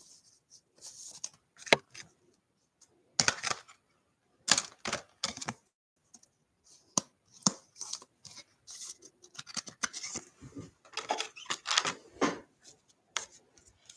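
A trading card and a clear plastic sleeve and holder being handled: scattered crinkling and rustling with sharp clicks, busiest about ten seconds in.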